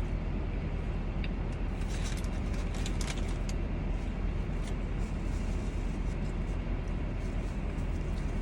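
Steady low rumble heard from inside a car's cabin, with a few faint clicks about two to three and a half seconds in.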